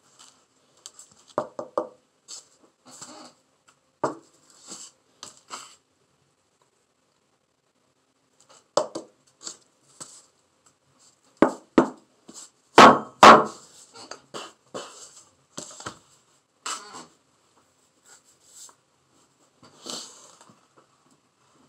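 Handling sounds from work on a sand painting: paper rustling and scraping against the board, with scattered knocks and a pair of louder thumps about thirteen seconds in.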